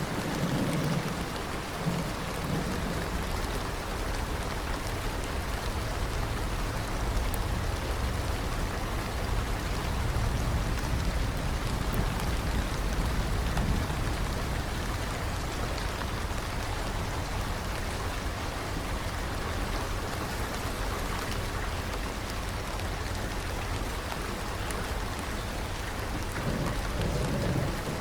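Steady heavy rain falling, with low thunder rumbling underneath; one roll fades out just after the start and another swells up near the end.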